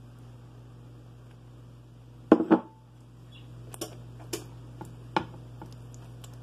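Silicone pastry brush knocking and tapping against a baking dish while brushing a wet coating over rolled tortillas: a loud cluster of knocks about two seconds in, then a few single sharp clicks about half a second apart, over a low steady hum.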